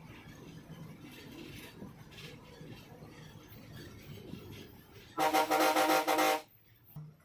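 Low running noise of the bus, then about five seconds in a loud multi-tone bus horn blares for just over a second in a few quick pulses and cuts off sharply.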